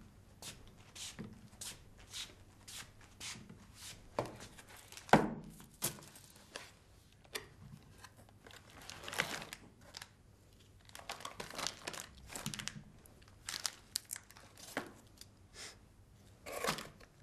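Cardboard box being torn open and wrapped bars crinkling as they are handled on a wooden table. There are light taps about twice a second near the start and one sharp knock about five seconds in.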